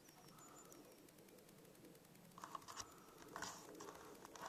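Near silence, with a few faint short rustles and scratches in the second half.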